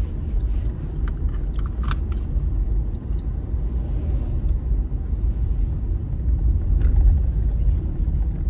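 Car driving on a road, heard from inside the cabin: a steady low rumble of engine and tyres, with a few short clicks between about one and two seconds in.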